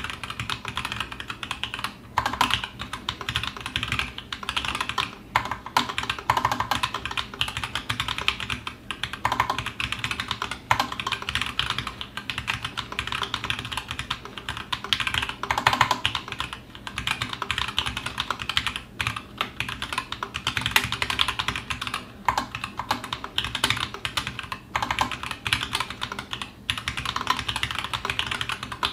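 Continuous fast typing on a TGR Alice mechanical keyboard with stock, unlubed 78 g Zealio V2 tactile switches and GMK keycaps: a dense run of crisp key clacks with short pauses between bursts, and now and then a deeper spacebar stroke.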